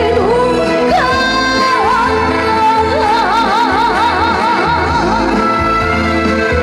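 A woman singing trot over a backing band with a steady beat. She slides into her notes and holds a long note with wide vibrato in the middle.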